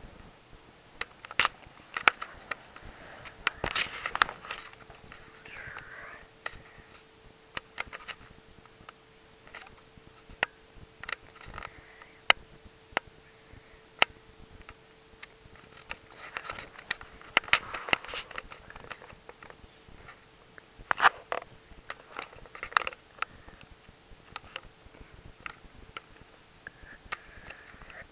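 Irregular clicks, scrapes and rustles of handling noise as the camera is moved against bedding and fur, with a faint steady hum underneath.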